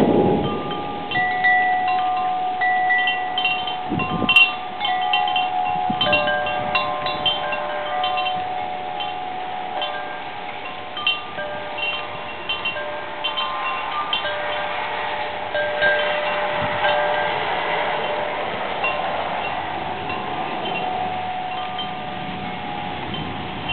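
Wind chimes ringing irregularly in gusty storm wind, with many clear notes at several fixed pitches overlapping over a steady wind hiss. A low rumble fades right at the start.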